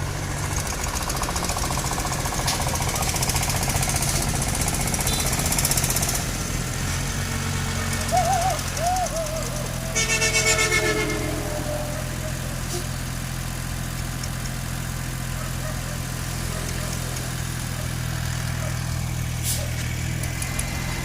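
An engine running at a steady speed, with a low, even hum. Partway through there is a brief pitched sound on top of it.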